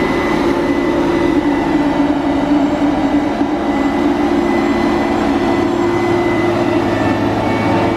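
Combine harvester's diesel engine running steadily, with a thin high whine over it, as the combine moves off.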